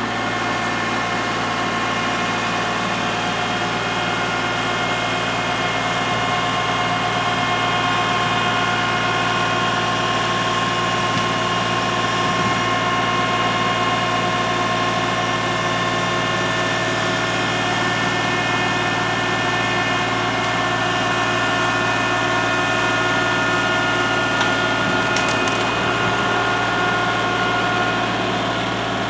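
Kubota L3301 HST tractor's three-cylinder diesel engine running steadily under load as the tractor backs up and drags a fallen tree out on straps.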